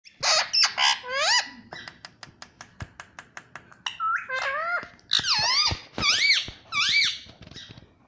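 Indian ringneck parakeet calling: loud, shrill chirps that sweep up and down in pitch, with a quick run of sharp clicks, about seven a second, in the middle, then a string of arched chirps near the end.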